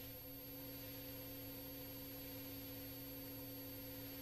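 Faint steady hum of a few constant tones on a police aircraft's intercom audio feed.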